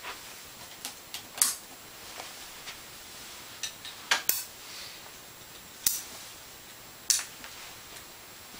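A handful of short, sharp clicks and brief rustling noises scattered over a low background, with a close pair of clicks a little past halfway.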